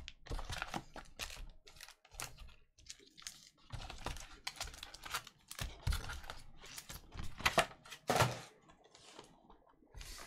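Foil-wrapped trading-card packs being pulled from a cardboard box and stacked, crinkling and tapping against each other and the box in a quick, irregular run of clicks and rustles. A louder knock comes a little after eight seconds in.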